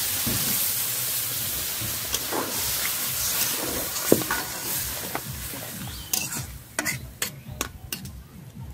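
Water poured into a kadai of hot oil and fried hog plum pieces, sizzling hard and dying down over a few seconds as a metal spatula stirs it; the water is added to simmer the chutney. Near the end, several sharp clicks of the spatula knocking and scraping the pan.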